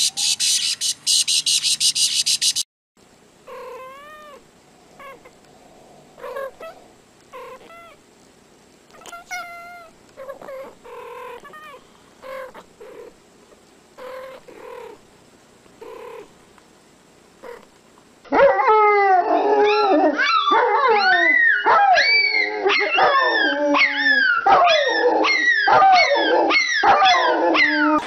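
Short animal cries rising and falling in pitch, about one a second, come after a brief loud passage that cuts off suddenly. About two-thirds of the way through, a loud chorus of many overlapping, falling cries from several animals takes over.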